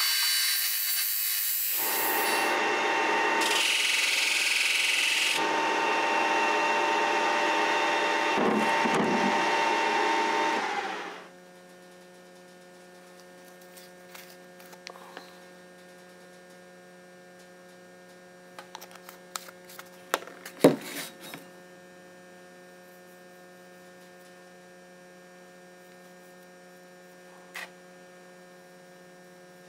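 Steel frame of a Wilton C-clamp pressed against a spinning abrasive sanding drum, a loud steady grinding hiss that shifts in tone as the work is moved, grinding down and polishing the forging. It cuts off about eleven seconds in. After that there is only a low electrical hum with a few light clicks and taps.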